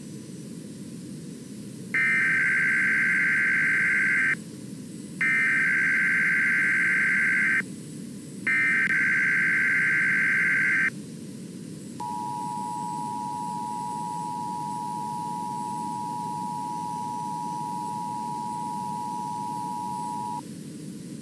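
Emergency Alert System activation: three buzzing bursts of SAME digital header data, each about two and a half seconds long, then a steady two-note attention tone just under 1 kHz held for about eight seconds. A radio hiss runs underneath.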